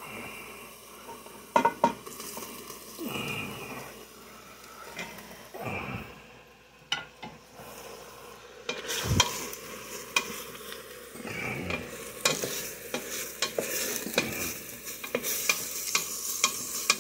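Ground beef, onions and browned meatballs sizzling in a stainless steel pot while a wooden spoon stirs them, knocking and scraping against the pot. Near the start the meatballs tumble in from a skillet.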